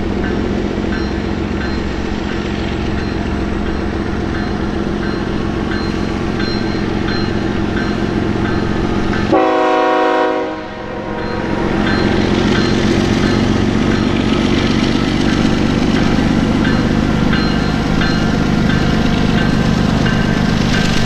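Diesel freight-train locomotives running with a steady low hum and faint regular ticking, and a short train-horn blast of about a second roughly nine seconds in.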